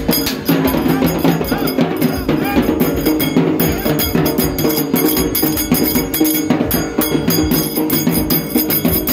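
Loud Bonalu festival dance music: fast, dense percussion strikes over sustained melody notes.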